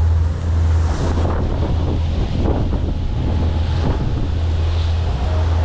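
Boat engine running with a steady low drone, under wind buffeting the microphone and water rushing and splashing.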